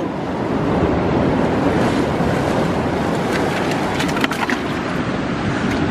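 Sea surf washing in over the rocks and through a narrow rock channel, a steady loud rush mixed with wind on the microphone. A few sharp clicks come around four seconds in.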